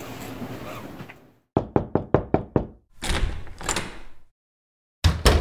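Knocking on a front door: about six quick, sharp knocks in just over a second. Later comes a burst of noise and, near the end, one loud deep thud.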